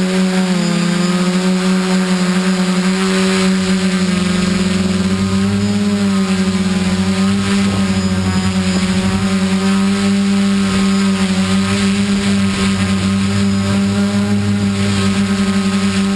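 DJI F550 hexacopter's electric motors and propellers humming steadily in flight, the pitch wavering slightly as the throttle changes.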